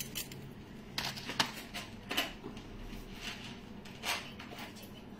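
Gold-plated jewellery pieces being handled between showings: about five light clicks and clinks, spread over a few seconds.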